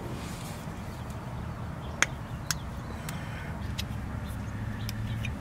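Light metal clicks and clinks of two wrenches on the brass fitting and cap of a boat's oil drain hose as the cap is worked loose, the two sharpest about two seconds in, over a steady low hum.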